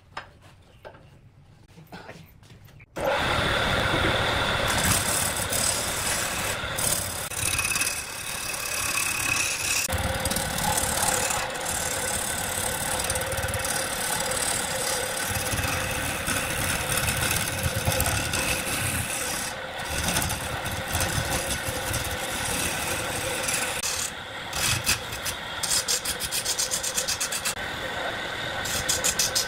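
A wood lathe starts up about three seconds in and spins a large log while a hand-held turning tool scrapes and cuts into the wood, a steady rasping cut that goes on with small rises and dips.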